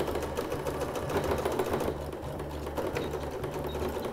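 Domestic electronic sewing machine running steadily, a fast, even run of needle strokes stitching a narrow seam along a zipper through the fabric layers.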